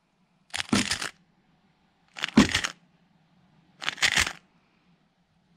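MoYu RS3M 2020 magnetic 3x3 speedcube being turned through a Ua-perm (PLL) algorithm three times: three quick bursts of rapid plastic clicking, each about half a second long, roughly a second and a half apart.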